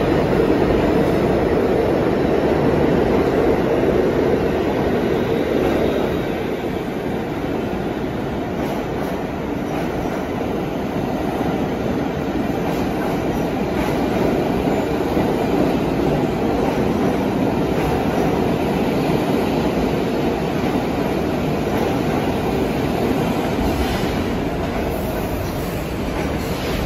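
An R46 New York City subway train pulling into an underground station and running along the platform: a steady rumble of steel wheels on rail that eases a little as it slows, with a few clicks over rail joints.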